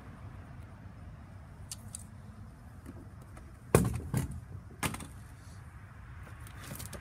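A few sharp knocks and clunks from a nail gun and its packaging being handled. The loudest comes about halfway through and two lighter ones follow within a second, over a steady low background rumble.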